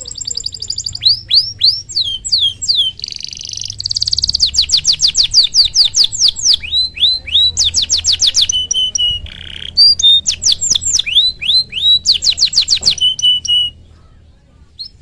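Domestic canary singing a long, fast song: rapid trills, runs of quick downward-sweeping whistles and short buzzy rattles, breaking off about a second before the end.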